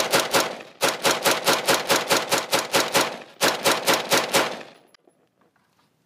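AR-15 (M4-pattern) semi-automatic rifle in 5.56 mm fired rapidly, about five or six shots a second, in three quick strings with brief pauses, the last ending about four and a half seconds in. Every round cycles without a stoppage despite the action being packed with desert dust.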